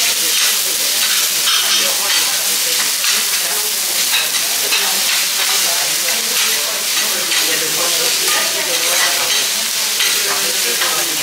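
Wagyu steaks and vegetables sizzling steadily on a hot teppanyaki steel griddle, with short scrapes and clicks as a metal spatula and knife work against the plate.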